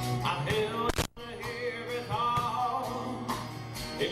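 Live acoustic rock band: a male lead vocal sings over the band's accompaniment and drums. The sound cuts out for a split second about a second in.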